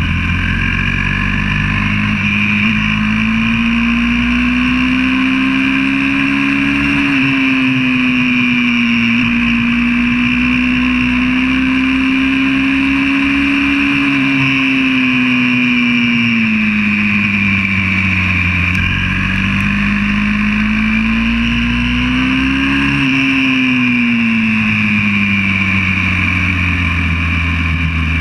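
YCF 125cc four-stroke pit bike engine running hard on track, heard from a camera on the bike, its pitch climbing under throttle and dropping off into corners several times, with a sharp drop about seven seconds in.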